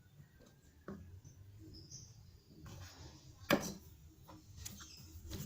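A few faint clicks and light knocks from small electronic parts being handled and fitted on a workbench, the sharpest about three and a half seconds in, over a low steady hum.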